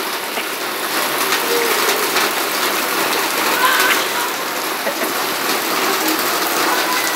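Steady rain falling on wet ground and puddles, a dense, even hiss.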